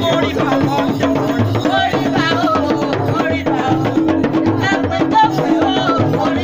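Drum and percussion music with a steady beat, over which higher pitches bend up and down.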